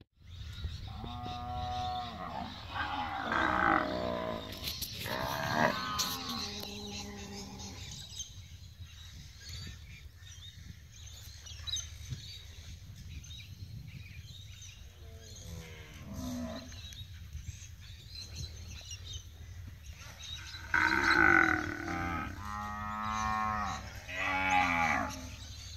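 Cattle mooing, several calls close together at the start, a single call around the middle and another run of calls near the end, over a steady low rumble.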